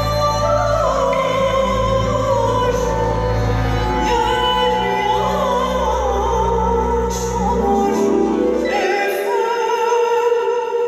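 Turkish folk-dance music played over the hall's loudspeakers: a wavering, ornamented sung melody over a sustained low drone. The drone drops out about nine seconds in, leaving the melody.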